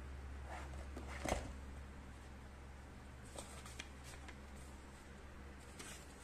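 Cardboard box and paper cards being handled: a short rustle and knock about a second in, then light paper rustles and small ticks as the cards are drawn out.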